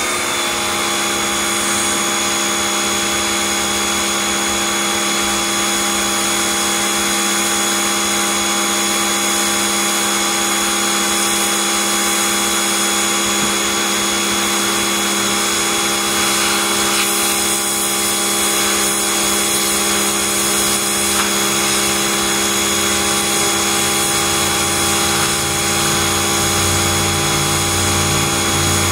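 Pressure washer running steadily, its motor and pump giving a constant whine while the jet of water hisses onto concrete.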